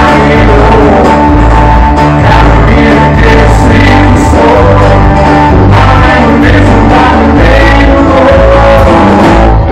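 Live rock and roll band playing loud: electric guitars and bass over a drum kit with cymbals.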